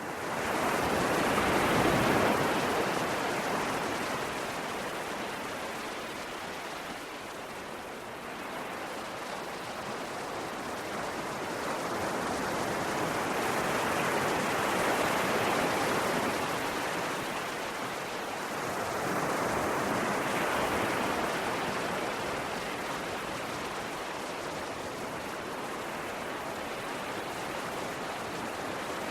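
Sea waves rolling in and washing up the shore, a continuous rush that swells and eases slowly. It rises in right at the start, with its biggest surge about two seconds in and further swells around fifteen and twenty seconds.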